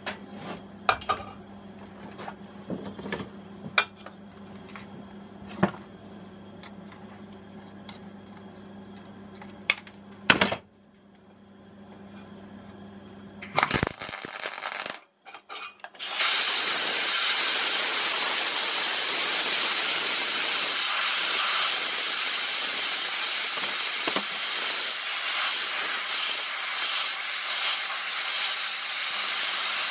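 A brief tack weld about halfway through, then a compressed-air blow gun hissing steadily for the rest of the time, blasting the fresh weld to cool it straight down on the steel rotor of an LG direct-drive washing machine motor.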